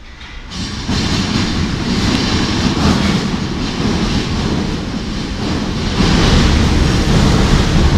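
RATP MF77 metro train arriving out of the tunnel into the station: the rumble of its steel wheels on the rails rises abruptly less than a second in, then grows louder again about six seconds in as the cars run past alongside the platform.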